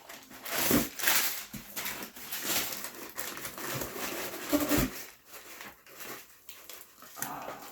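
Packing paper, cardboard and foam pieces being handled and pulled out of a shipping box: rustling and crinkling with soft knocks, busiest in the first five seconds and quieter after.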